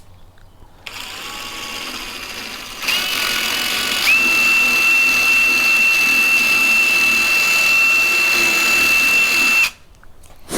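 Power drill spinning a drill bit to clean packed mud and debris out of a mower wheel's pin hole. It starts softly about a second in, speeds up near three seconds, runs steadily with a high whine and stops suddenly near the end.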